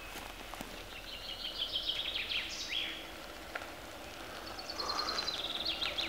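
A songbird singing two quick phrases of rapid, high repeated notes. The first ends in a brief downward sweep, and the second starts a second and a half later.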